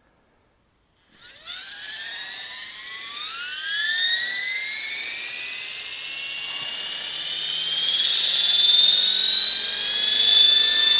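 Electric RC helicopter spooling up: the motor and rotor whine starts about a second in and climbs steadily in pitch and loudness as the rotor head comes up to speed, levelling off near the end.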